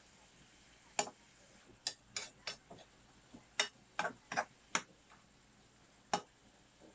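A kitchen utensil knocking against cookware: about ten sharp, irregular clicks and knocks.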